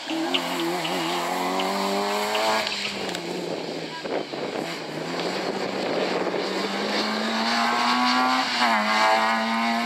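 Rally car engine revving hard as the car comes out of a bend and accelerates away, with crackles early on and a rough, noisy stretch in the middle. Near the end the engine note climbs, drops sharply at a gear change and climbs again.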